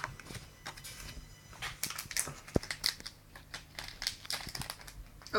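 Trading cards and crinkly foil booster-pack wrappers rustling and crackling in the hands as they are shuffled and handled, a run of irregular crackles.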